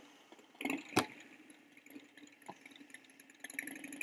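Clicks and knocks from handling a small battery-powered speaker set and MP3 player. Near the end a recorded motorcycle engine sound effect starts playing through the small speakers, a steady run of rapid pulses.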